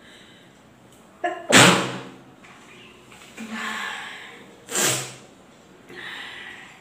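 A woman sneezing twice, about a second and a half in and again near five seconds, each sneeze a loud, short burst. Quieter breathy sounds come just before the first sneeze, between the two, and after the second.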